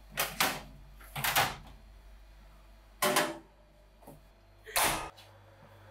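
Stainless-steel kitchen oven cabinet being worked: about five sharp metal knocks and clanks as its door is opened and a tray is slid in, over a low steady hum.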